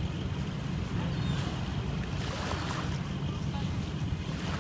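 Wind buffeting the microphone as a steady low rumble, over small waves washing on a pebble beach.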